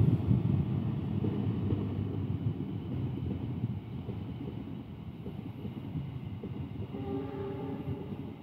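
Passenger train passing: a low rumble from the diesel locomotive and the wheels on the rails. It is loudest at the start as the locomotive goes by, and eases as the coaches roll past.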